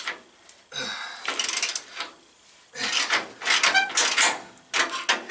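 Several short bursts of metal clinking and rattling from hand tools being handled under the car, one of them, about three to four seconds in, with rapid clicking.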